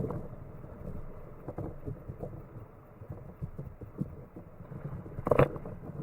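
Muffled low rumble of wind and water buffeting the microphone on a kayak, with irregular soft thumps and one louder sharp hit about five seconds in.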